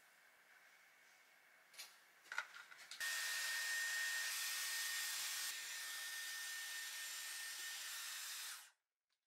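A few clicks and knocks, then a hair dryer switched on about three seconds in, blowing steadily with a thin high whine. It drops a step in level a couple of seconds later and cuts off shortly before the end.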